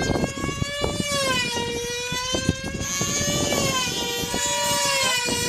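Small two-stroke control-line combat model engines running flat out in a high-pitched whine. The pitch slowly rises and falls, with short clicks scattered through it.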